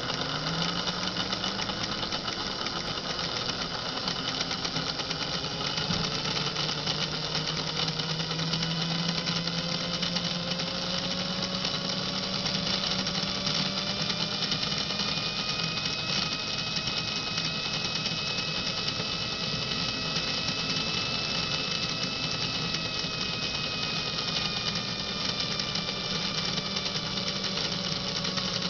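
Lionel postwar GG1 2332 open-frame motor with worm-gear drive, running free on a stand so the wheels spin in the air: a steady mechanical whir with a low hum under it. Its pitch climbs over the first several seconds as the motor comes up to speed, then holds.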